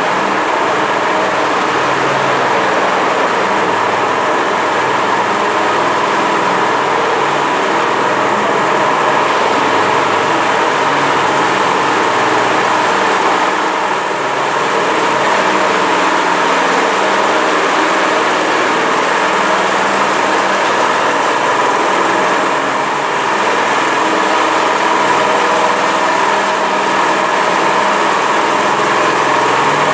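Walk-behind power trowel's small petrol engine running steadily under load as its rotating blades finish fresh concrete, dipping slightly twice.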